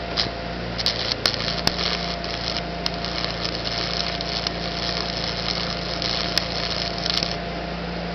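Stick-welding arc with a 7018 electrode on DC, about 120 amps: a steady crackling hiss with sharp pops over the welding machine's steady hum. The crackle cuts off near the end, where the rod sticks to the work.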